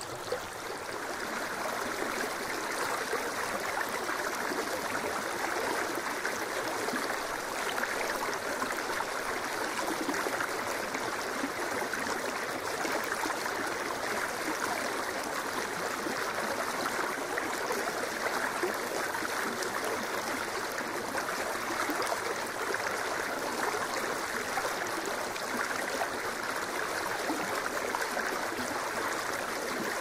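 Small snowmelt stream running over stones: a steady rush of flowing water, rising slightly in level about a second in.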